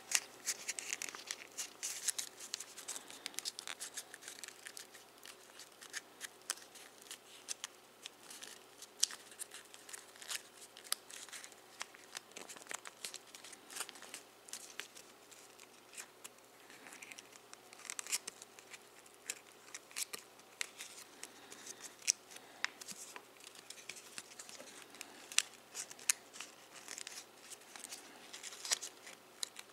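Foil origami paper crinkling and crackling as fingers fold, press and pop out its creases: irregular small sharp clicks and rustles.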